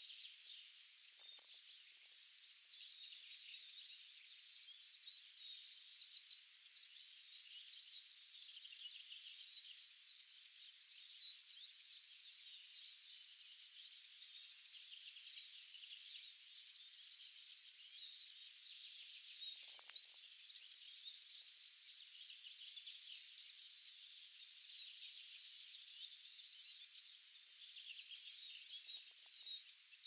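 Faint, dense chorus of many small birds chirping and singing at once, with two brief lower sounds, one about a second in and one near the middle.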